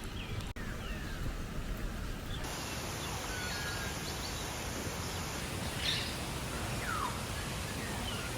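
Birds calling in short, scattered chirps and whistles over a steady low outdoor rumble.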